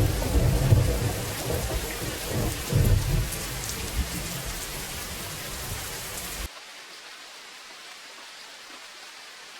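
Heavy rain falling over a deep, rolling rumble that swells a few times and slowly fades. About six and a half seconds in it cuts off abruptly to a lighter, steady rain hiss.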